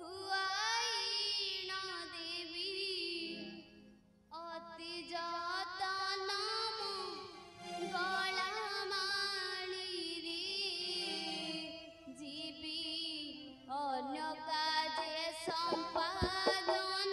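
A high voice, a woman's or girl's, singing a slow devotional song in long, ornamented phrases with wavering vibrato, pausing briefly for breath between them. A few sharp drum strokes come in near the end.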